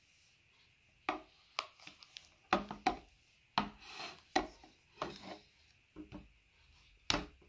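Metal clicks and knocks of a Tapetool hand tying machine being handled and worked on a wooden table: a dozen or so sharp clacks at irregular spacing, starting about a second in, with one of the loudest near the end.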